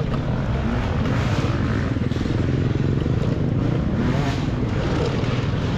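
Riding noise from a 72-volt Talaria Sting electric dirt bike on a rough off-road course: a steady, loud rumble and rattle with no break, and a faint rising and falling engine whine near the end.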